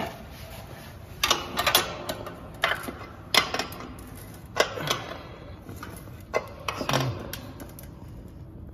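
Steel roller chain clinking and rattling against the sprocket and frame in short, irregular bursts of clicks as it is worked by hand onto a motor's drive sprocket.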